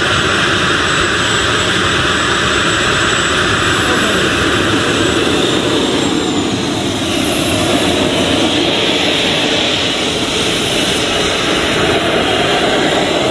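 Loud, steady jet-engine roar that cuts in suddenly and holds at an even level, with a slight slow wavering.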